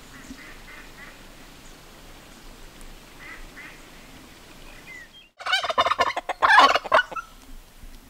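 Domestic turkey gobbling: one loud, rapid warbling call of about two seconds, starting about five and a half seconds in. Before it there are only faint, distant bird chirps.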